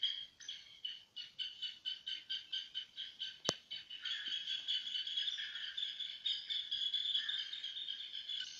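Insects chirping in a high, even rhythm of about three to four chirps a second, merging into a continuous buzz about four seconds in. A single sharp click comes about three and a half seconds in.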